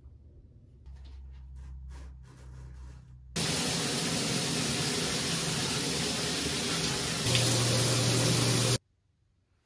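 Shower water running, a steady hiss of spray that starts abruptly a few seconds in, gets a little louder about a second before the end, and cuts off suddenly near the end. Before it there is faint rustling.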